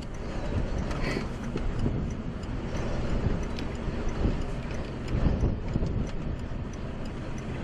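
Steady rumbling wind noise buffeting the microphone, from strong tornado-driven winds, with a few faint ticks.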